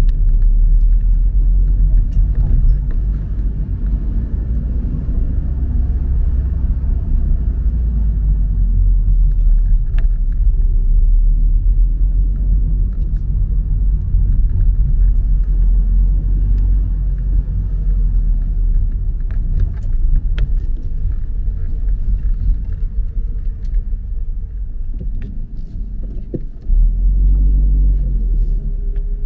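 Car cabin rumble of engine and tyres while driving slowly, a steady low rumble that swells suddenly near the end.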